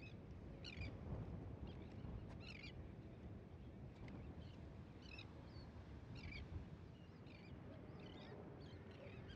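Faint seaside ambience: birds chirping in short calls about once a second, over a low rumble of wind.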